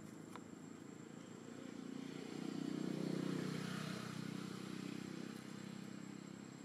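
Motor vehicle passing at a distance: a low engine sound swells to its loudest about halfway through, then fades away.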